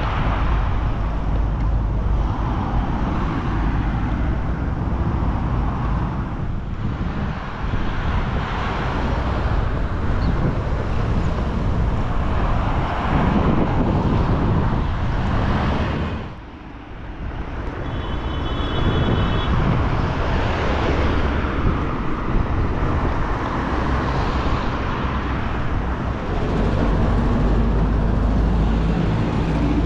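Road traffic: cars passing one after another along a street, the noise swelling and fading as each goes by, with a short lull just after the middle.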